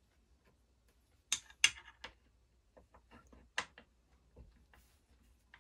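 A few sharp clicks and light taps of a hand tool and small chainsaw parts being handled during carburetor removal, two close together about a second in, another just after, and one more past the middle, with fainter ticks between.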